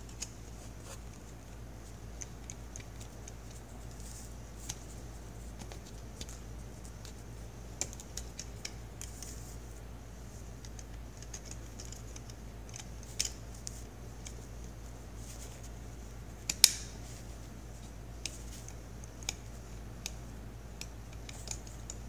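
Small scattered plastic clicks and ticks from fingers working the plastic fuel-line connector clips on a Piaggio fuel pump. A sharper snap comes about two-thirds of the way through, over a steady low hum.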